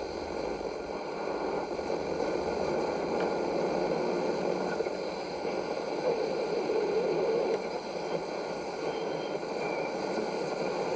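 Bush TR130 transistor radio on the medium-wave band giving out a steady hiss and rush of static through its small loudspeaker, with no clear station coming through.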